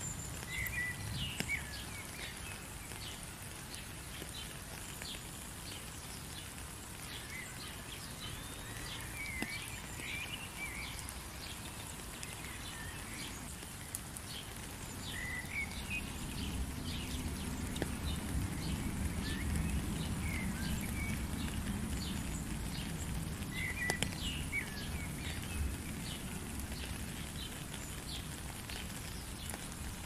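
Steady rain with birds chirping now and then in short calls. About halfway through a low rumble builds, then eases off before the end.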